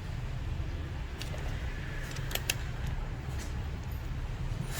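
A steady low background rumble with a few faint, light clicks, like small parts being handled.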